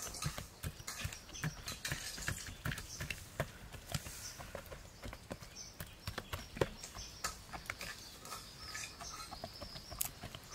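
Bamboo skewers jabbed again and again into the skin of a boiled pork belly on a wooden chopping block, making a quick, irregular run of taps and clicks. The rind is being pricked so it will crisp when fried.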